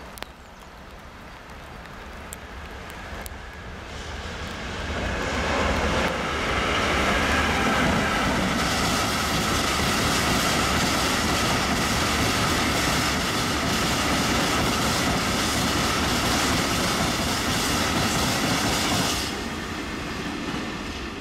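Freight train of hooded steel-coil wagons rolling past, the steady noise of wheels on the rails building over the first few seconds and cutting off sharply near the end as the last wagon goes by.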